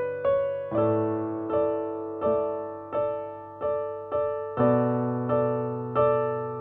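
Slow background piano music: single notes struck in turn about every three-quarters of a second, each fading before the next, over held low notes.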